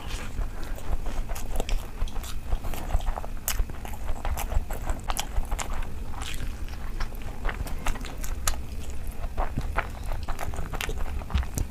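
Close-miked eating of rice and curry by hand: chewing and mouth smacking with many sharp, irregular crunchy clicks.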